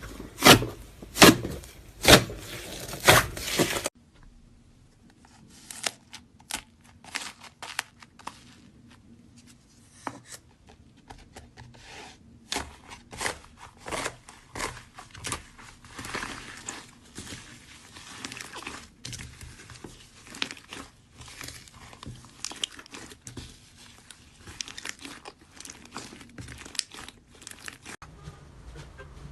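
Slime being squeezed and pressed by hand, making crackling, popping sounds. For the first few seconds there are loud squelches about once a second; then it cuts abruptly to quieter, irregular crackles and clicks.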